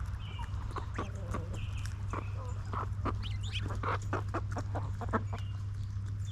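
Chickens clucking: a quick, uneven run of short calls, with a few brief higher notes, over a steady low hum.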